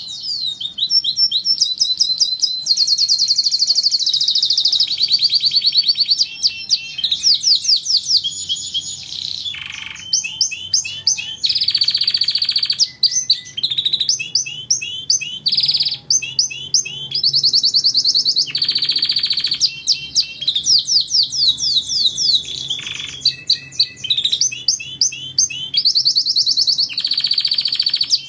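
Domestic canary singing a continuous song of rapid trills: each phrase is a quick run of one repeated note, switching to a new trill every second or two.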